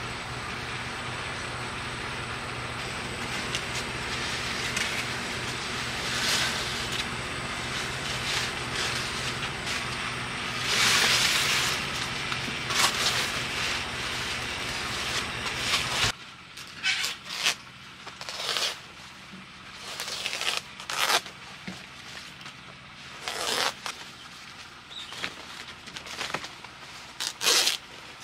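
A steady low hum under background noise, with a brief rustle near the middle; it stops suddenly about two thirds of the way through. Then fresh banana leaves are rustled, torn and sliced with a kitchen knife: a string of short, sharp crackling scrapes.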